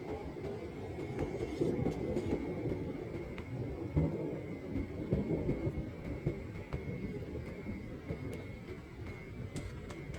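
Distant thunder rolling in a long, continuous low rumble.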